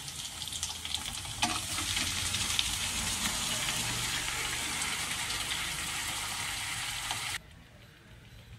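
Cooked greens and beans frying in hot oil with onions in a steel kadai. The sizzling grows louder about a second and a half in as they land in the oil, and the spoon stirs through it. The sizzle cuts off sharply near the end.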